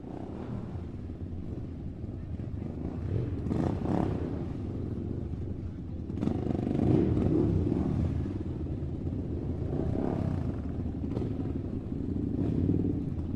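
Toy RC rock crawler's small electric motor and gearbox running steadily as it crawls over grass and dirt, with a few short knocks along the way.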